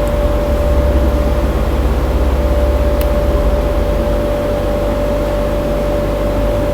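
Steady background hum and hiss with a constant mid-pitched tone over a low rumble, and a faint click about three seconds in.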